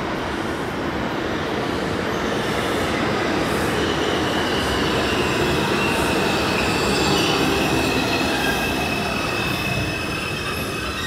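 A New York City Subway train running through the station on the tracks behind the fence, its steady rumble of wheels on rail swelling and easing as it passes. From about three and a half seconds in, a high wheel squeal rings over the rumble.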